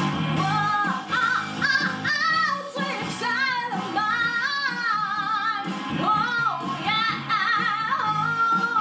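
A woman singing a melody with wavering, held notes, ending on a long sustained note, with musical accompaniment under her voice.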